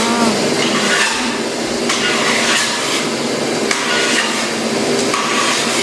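Hammer tapping during vinyl floor installation: a few irregular knocks over a steady noisy background.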